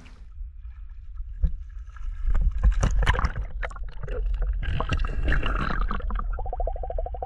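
Muffled rumbling and gurgling of river current heard underwater, with scattered knocks. Near the end a fast, even pulsing sets in.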